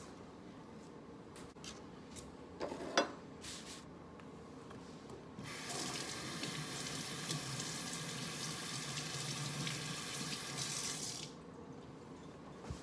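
A few knocks and clicks, the loudest about three seconds in, then a water tap runs steadily for about six seconds and is turned off.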